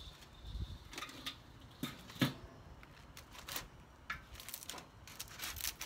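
Aluminium foil crinkling and crackling as it is handled and peeled back on a smoker grate, with scattered sharp clicks of metal tongs; the loudest is a single sharp click about two seconds in, and a dense run of crinkling comes near the end.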